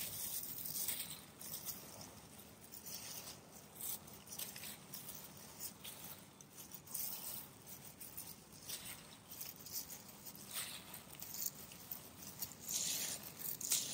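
Gloved hands working coarsely shredded taro and rice flour in a glass bowl: an irregular crackly rustling of the dry shreds and the plastic gloves, louder near the end.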